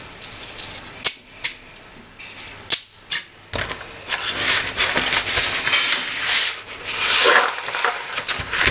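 Dry spaghetti and its box being handled: two sharp clicks of hard dry strands about 1 s and nearly 3 s in, then a steady rustle and rattle as the cardboard spaghetti box and its wrapper are handled and the dry strands are pulled out.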